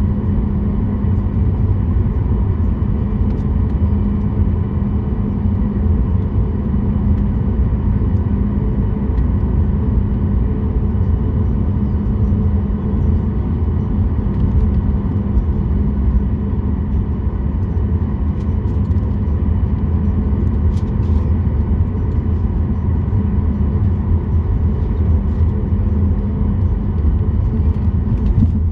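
Cabin noise by the wing of a Boeing 737 MAX 8 with its CFM LEAP-1B engines running: a steady low rumble with even hums on top and no change in level.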